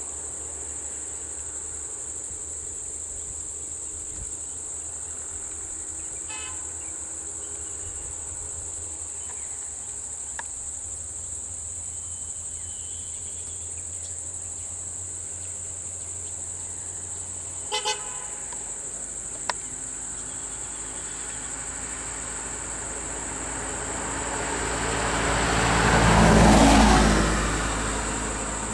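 Steady high drone of insects, with a low engine idling until about two-thirds of the way through. A vehicle horn gives two short toots partway in. Near the end a vehicle drives past, its noise swelling to the loudest point and then fading.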